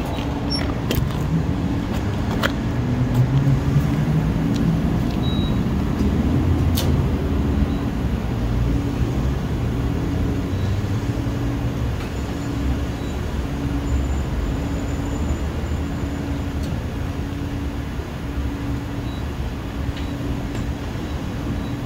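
Steady low rumble of road traffic and vehicle engines, with a low hum that pulses about once a second.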